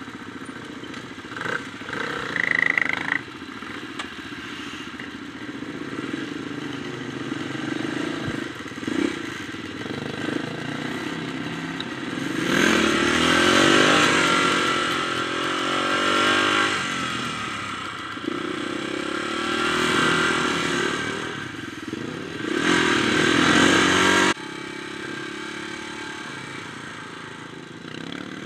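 Dirt bike engine running under the rider, its revs rising and falling as it accelerates and shifts, with a rush of wind noise over the microphone during the faster stretches. A brief high tone sounds about two seconds in, and the sound changes abruptly near the end.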